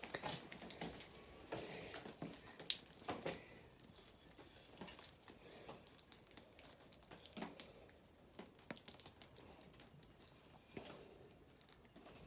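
Faint spatter and drips of water from a garden sprinkler as its water pressure drops, with scattered small clicks and one sharper click about three seconds in.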